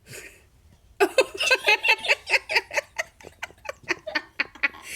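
A short breathy hiss, then from about a second in a person giggling in quick pitched bursts, about five a second, getting quieter toward the end.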